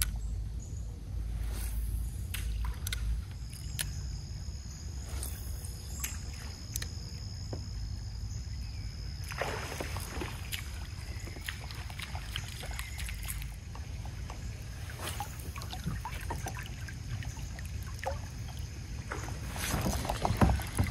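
Water lapping and sloshing against a kayak's hull under a low rumble, with scattered small clicks from fishing gear as the lure is cast and reeled in. A short rush of water comes about nine and a half seconds in, and a louder clatter of knocks comes near the end.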